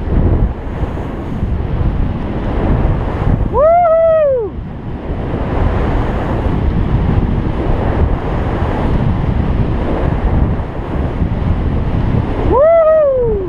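Wind buffeting the microphone of a GoPro worn by a snowboarder, with the hiss of the board sliding and carving through snow. Twice, about three and a half seconds in and again near the end, a voice gives a loud whoop that rises and then falls in pitch.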